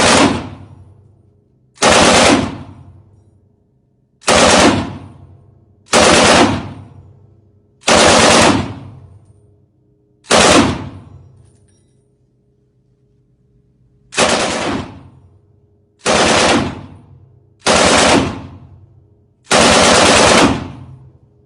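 Automatic firearm fired in short bursts, about ten of them roughly two seconds apart with a longer pause midway. Each burst is followed by a fading echo.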